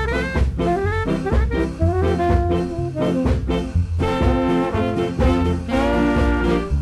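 Early-1960s Jamaican ska instrumental record: a horn melody with rising runs over a steady beat and bass line, and about four seconds in the full horn section holds chords together.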